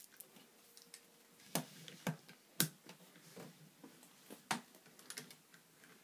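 Plastic toy motorcycle handled on a wooden tabletop: scattered sharp clicks and knocks as it is moved and set down, the loudest about one and a half, two and two and a half seconds in, and another near four and a half seconds.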